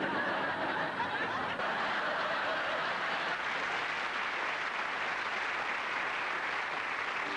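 Studio audience laughing and applauding, a steady wash of clapping and laughter that breaks out suddenly after a joke's punchline.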